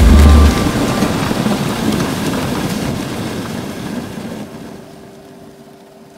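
Background music with a heavy bass cuts off about half a second in, leaving a steady rushing noise of wind on the microphone and the sled moving over snow that fades away over several seconds. A faint steady hum comes in near the end.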